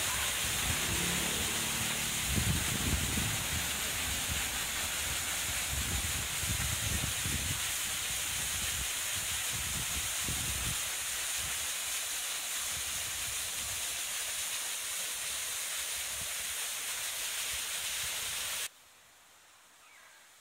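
Small artificial waterfall: a steady rush and splash of water falling over rocks, with some low rumbling in the first half. It cuts off suddenly near the end, leaving faint outdoor background with a few small chirps.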